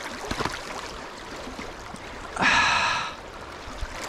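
River water rippling and flowing past close by, with one short, loud rasping sound about two and a half seconds in.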